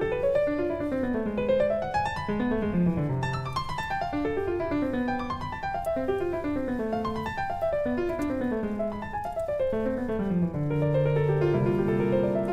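Background piano music: runs of notes that climb and fall over and over, settling into held notes near the end.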